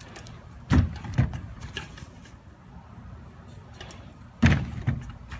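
BMX bike wheels thudding down hard, two heavy knocks close together about a second in, then another pair of knocks about four and a half seconds in.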